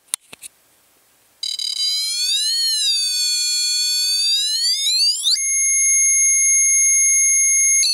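Junior Theremin kit's piezo speaker sounding a buzzy electronic tone after a few clicks. The tone wavers up and down as a hand moves near the antenna, then climbs and holds one steady high note.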